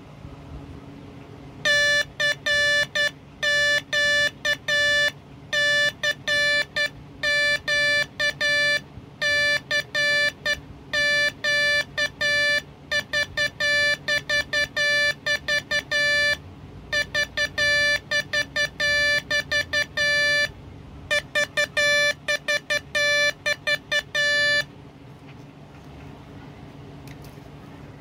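Homebrewed Morse code practice oscillator sounding a steady tone through its buzzer, keyed on and off with its micro switch in short dots and longer dashes, in groups with brief pauses; it stops near the end.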